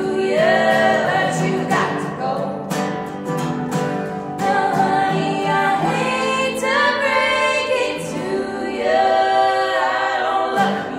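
Women singing a song in close harmony over a strummed acoustic guitar.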